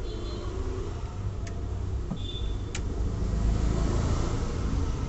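A wooden match struck and flaring, a hiss about three and a half seconds in, after a couple of sharp clicks, over a steady low rumble.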